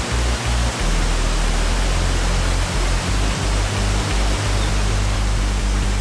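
Steady rush of white water pouring over a wide, stepped waterfall, with background music's low bass line pulsing beneath it.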